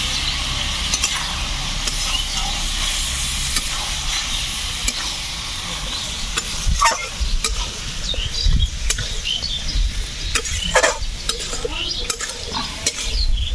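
Boiled mushrooms frying in a wok of cooked-down spice masala, sizzling steadily while a spatula stirs them, with several sharp knocks of the spatula against the pan partway through.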